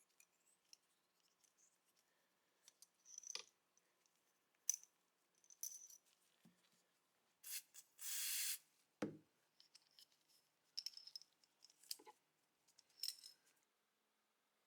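Small metal pistol parts clicking and clinking as they are handled on a workbench, with a hiss lasting about a second a little past halfway and a duller knock right after it.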